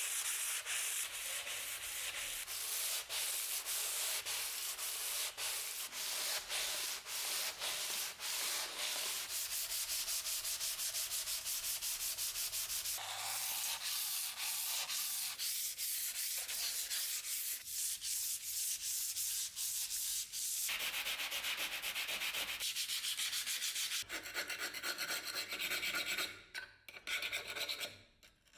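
Rusty steel sword parts being rubbed by hand with an abrasive: quick back-and-forth scrubbing strokes, several a second, with a rasping hiss. The pace and tone change a few times, and the strokes turn sparse near the end.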